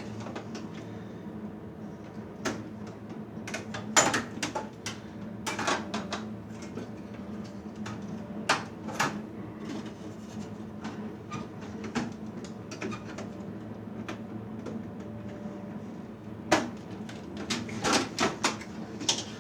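Scattered metal clicks and clanks of a server's chassis and parts being worked loose by hand, in clusters, over a steady low hum.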